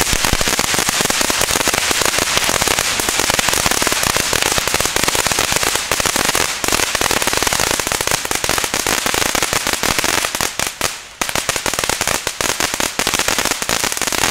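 Titanium Thunder firework fountain spraying, with a dense, rapid crackle of bursting stars. There is a short lull about three-quarters of the way through, then the crackling picks up again.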